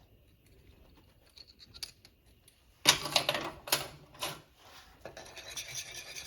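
A few sharp clattering knocks, then, about five seconds in, a whisk starts scraping rhythmically against the pan as flour is whisked into heavy cream for the sauce.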